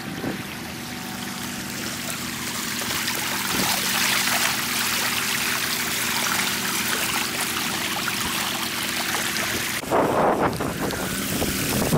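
Muddy floodwater rushing and swirling past stacked concrete road slabs and over a sand road as the flood washes the embankment out. A steady low engine hum runs underneath, and near the end wind buffets the microphone.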